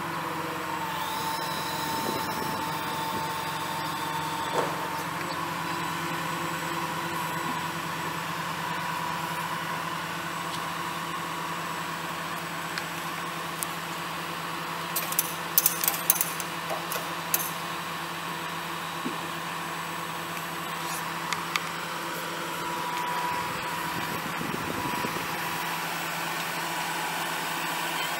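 The Ram 5500's 6.7-litre inline-six turbo diesel running steadily with a constant whine over it. A single click comes early on, and a quick cluster of sharp clicks comes a little past halfway.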